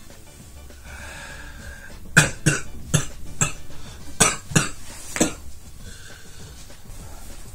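A man coughing: four coughs starting about two seconds in, then three more after a short pause.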